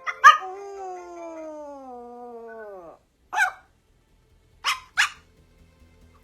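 A dog howls in one long call that falls steadily in pitch for nearly three seconds. It then barks three times, the last two in quick succession.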